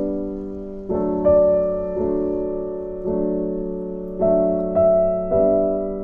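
Soft background piano music: slow chords struck about once a second, each fading away.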